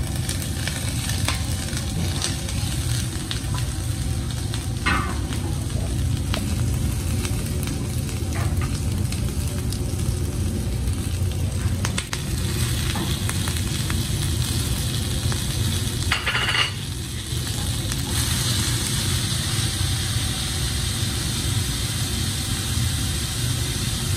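Food sizzling and frying in a steel pan, with utensils clicking and scraping against the pan, over a steady low rumble. About two-thirds of the way through there is a brief, higher ringing sound.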